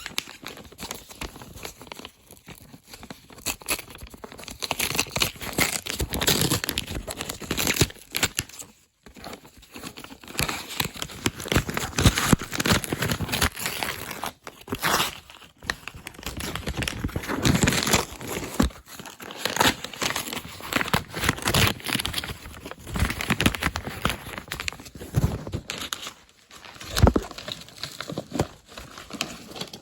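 Packaging being opened by hand: irregular crinkling, rustling and tearing, with short pauses now and then.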